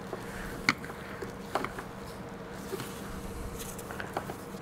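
A few scattered light clicks and scrapes of hand tools on a worm-drive hose clamp and the power steering return hose, over a steady low hum.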